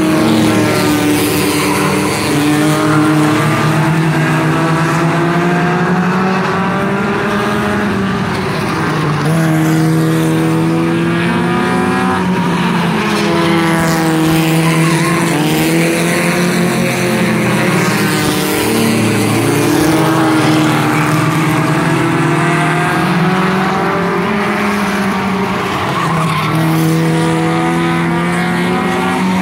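A pack of scrambler-class race cars running laps on an asphalt oval, several engines at once. Their pitch falls and rises again and again as cars lift into the turn, accelerate out and pass by.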